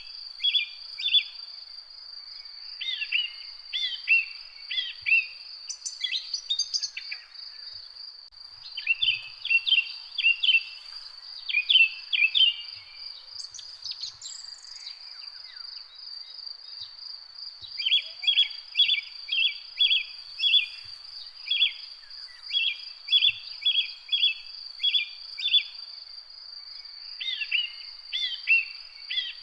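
Garden birds chirping in runs of short repeated high notes, about three a second, with pauses between phrases, over a steady high-pitched insect trill that runs without a break.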